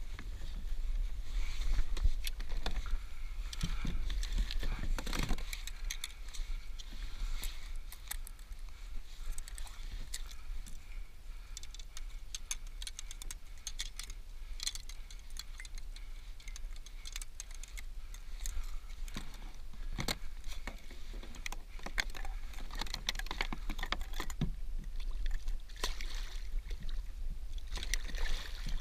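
Kayak fishing sounds played back fast: a jumble of quick clicks and rattles from hands working a small reel and gear, over water sloshing against the hull and a steady low rumble.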